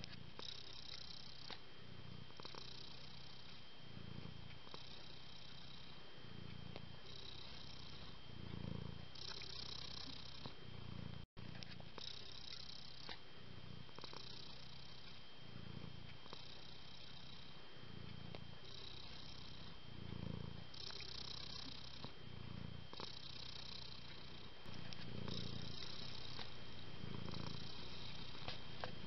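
Tabby domestic cat purring steadily, the purr swelling and easing with each breath about every two seconds.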